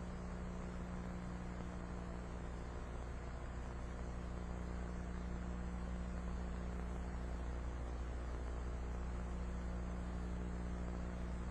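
Steady low electrical hum, like mains hum, over an even background hiss, unchanging throughout with no other distinct sounds.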